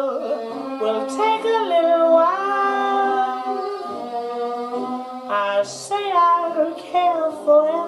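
Vocal music, singing voices, played back from a cassette on a Uher CR 210 portable stereo cassette recorder during a playback test after its overhaul.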